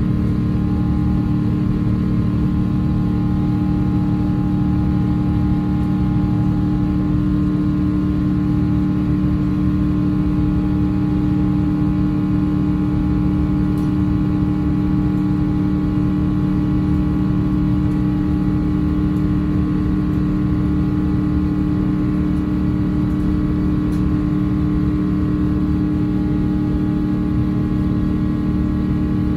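Steady cabin drone inside an Airbus A350-900 climbing out after takeoff: the Rolls-Royce Trent XWB engines and rushing airflow make an even, unchanging roar with a couple of steady low hum tones running through it.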